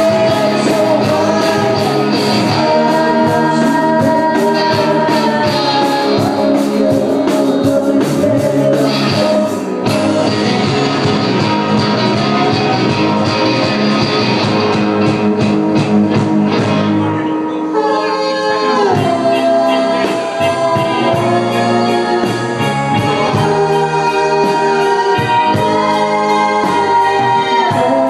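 Live rock band playing: electric guitar, keyboard and drums with a sung vocal. The arrangement thins briefly and shifts about two-thirds of the way through.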